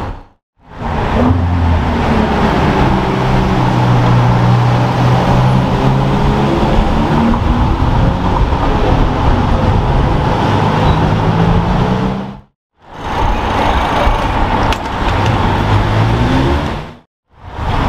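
Supercar engines running on a city street at low speed, a steady engine drone that rises and falls a little in pitch as the cars move off, over traffic noise. The sound drops out briefly twice where the clips are cut.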